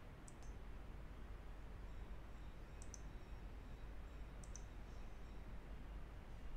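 Computer mouse button clicked three times, each a quick double click of press and release, over a steady low hum.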